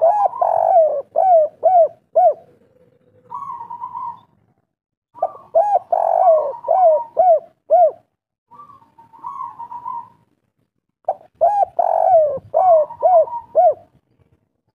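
Caged spotted dove (tekukur, kuk-3 song type) singing: three phrases, each a short quavering lead-in followed by a quick run of repeated coos, with pauses between them.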